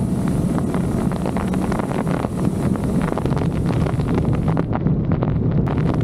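Wind buffeting the microphone on a Harley-Davidson Street Glide Special cruising at road speed, over the steady low drone of its V-twin engine.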